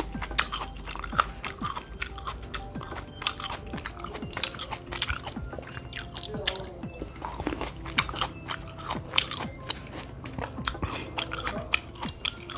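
Close-miked chewing and biting of food: a run of short wet smacking clicks from the mouth.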